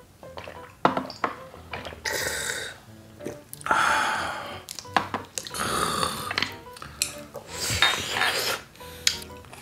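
Close-up mouth sounds of eating and drinking at the table: four loud breathy bursts, each under a second, after a couple of clicks of cutlery on a dish about a second in. Soft background music plays underneath.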